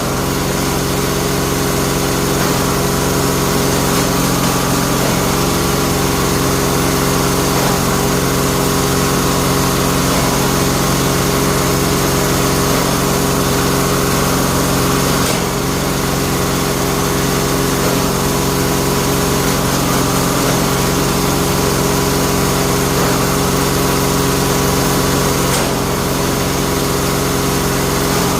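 Bamboo-splitting machine running steadily with a constant engine drone. The sound changes briefly about halfway through and again near the end.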